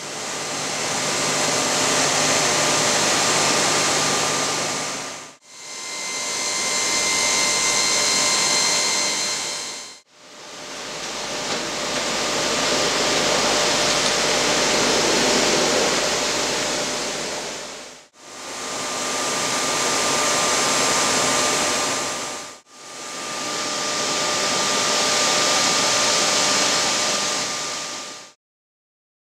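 Tile-cutting machinery running in a workshop: a loud, steady rushing hiss with a few faint steady hums. It comes in five stretches that each fade in and out.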